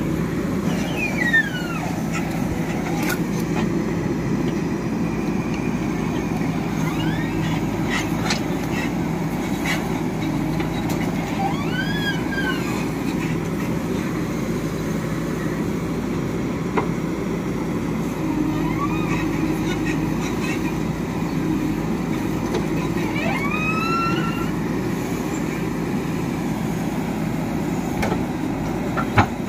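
JCB 3DX backhoe loader's diesel engine running steadily under load as the backhoe bucket digs wet clay, with two sharp knocks, one about a second in and a louder one near the end.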